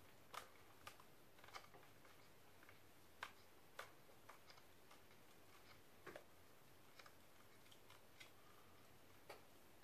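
Faint, irregular plastic clicks and ticks as a small plastic tripod is twisted into the threaded mount of a handheld spotlight.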